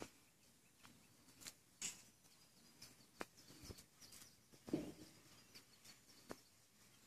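Near silence: faint room tone broken by a few soft, scattered clicks and ticks, one slightly fuller soft knock near the five-second mark.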